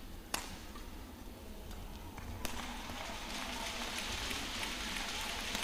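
Badminton rally: the shuttlecock is struck by rackets with sharp single cracks, about two seconds apart, over arena crowd noise that swells from about halfway through.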